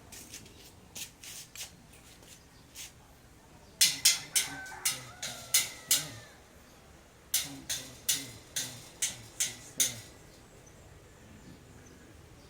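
Hammering: a few faint knocks, then two runs of about seven sharp strikes, roughly three a second, with a short pause between the runs.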